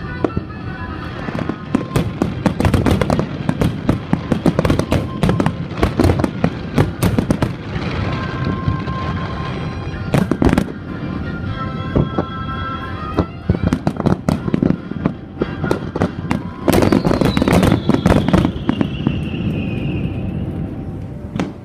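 Aerial fireworks bursting in rapid, irregular volleys, with a dense run of bangs about seventeen seconds in and a long falling whistle after it. Music plays underneath.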